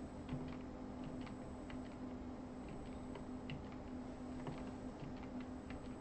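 Faint, irregular clicking of computer keys as the moves of a chess-game replay are stepped through, over a steady low electrical hum.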